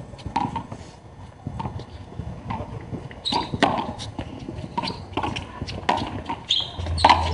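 Handball rally on a concrete court: sharp slaps of the rubber ball off the concrete wall and floor and off the players' hands, among sneakers pattering and scuffing on the concrete. A low steady hum comes in near the end.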